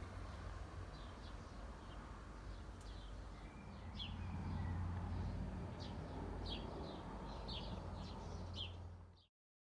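Small birds chirping in short, quick notes over a steady low rumble; the sound cuts off abruptly near the end.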